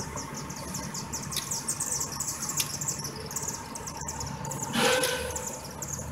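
Outdoor street ambience with rapid, high-pitched chirping throughout, and a brief louder noise about five seconds in.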